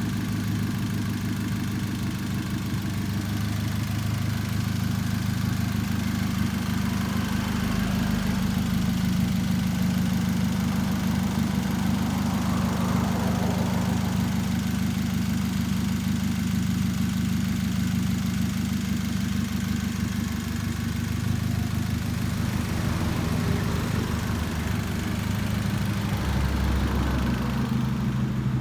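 Chevrolet Spark's small four-cylinder petrol engine idling steadily.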